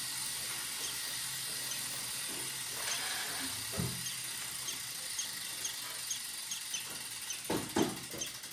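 Bicycle rear wheel spinning on an Elite indoor roller trainer: a steady hiss with a low hum, a light regular ticking in the second half and a few soft knocks.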